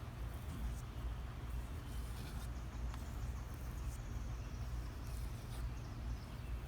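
Steady low outdoor rumble with a few faint light ticks scattered through it.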